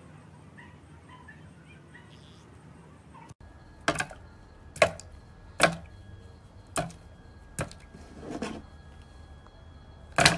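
A series of about seven sharp knocks and clunks on a plastic blender jar, roughly one a second, starting a few seconds in, as pieces of Twix bar are dropped in.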